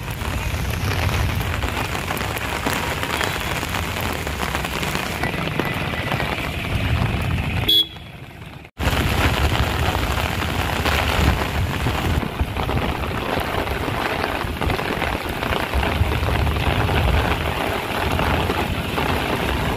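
Heavy rain pouring onto a flooded street: a steady hiss of rain with traffic moving through the water. It breaks off for about a second around eight seconds in.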